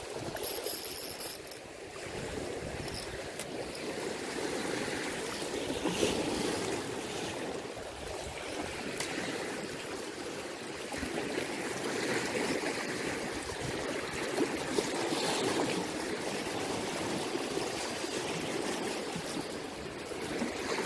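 Turbulent water churning and rushing steadily, like a fast stream.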